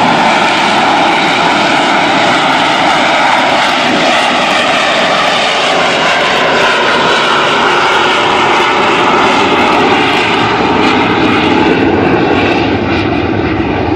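Sea Harrier's Rolls-Royce Pegasus turbofan running with a loud, steady jet roar; its high hiss fades a little near the end.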